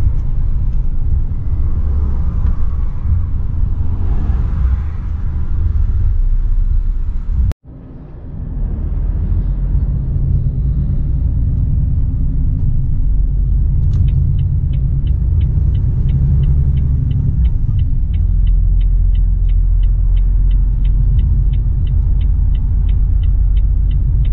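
Inside the cab of a Volvo FH 460 truck: the six-cylinder diesel and the cab give a steady low rumble. It drops out sharply for a moment about a third of the way in, and from a little past halfway a light, regular ticking, about three a second, runs over it.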